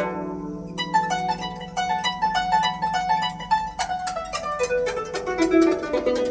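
Guzheng (Chinese zither) played solo: a ringing low chord dies away, then about a second in a quick, even run of plucked notes begins, with a sharper accent near the end.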